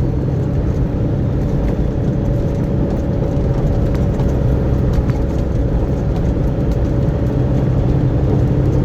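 Heavy diesel engine of a semi truck running at low speed as it creeps through a turn, a steady low drone with a faint even hum above it, heard from inside the cab.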